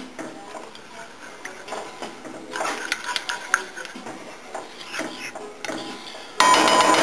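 A wooden spatula stirring and scraping a thick milk-and-roux soup in a skillet: soft scrapes and light knocks against the pan. Near the end a loud ringing sound with several steady pitches cuts in suddenly, like a chime.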